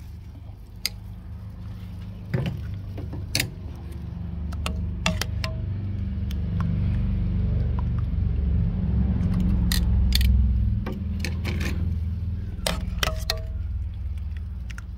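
Utensil clicking and clinking against a stainless steel saucepan and a metal tray as pieces of barbecue chicken are dipped in sauce, a dozen or so sharp taps. Underneath, a low rumble swells through the middle and fades.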